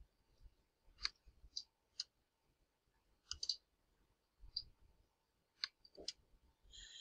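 Faint, scattered clicks of a computer mouse, about eight spaced irregularly.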